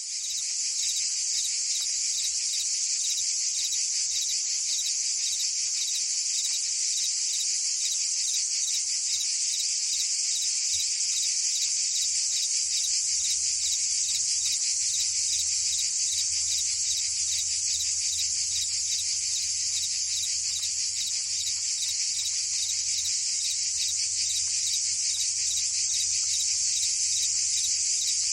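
Chorus of cicadas and crickets: a steady, dense, high-pitched buzzing trill that holds at an even level.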